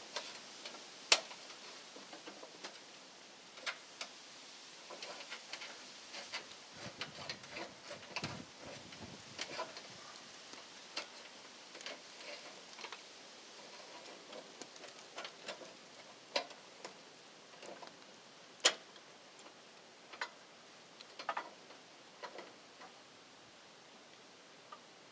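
Hand-tool work on electrical wiring: scattered, irregular clicks and light taps of a screwdriver and wires being handled, with two sharper clicks, one about a second in and one about two-thirds of the way through.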